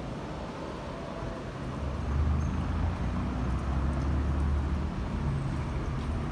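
Low, steady rumble of a motor vehicle's engine close by, swelling about two seconds in, over the general noise of city street traffic.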